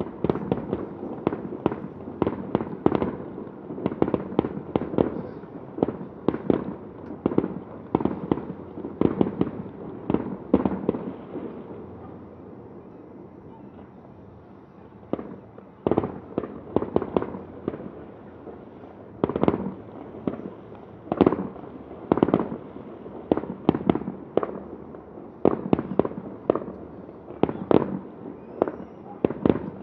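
Fireworks display bursting in rapid, irregular volleys of sharp bangs, each with a short echoing tail. The bangs thin out into a lull of a few seconds about halfway through, then start again.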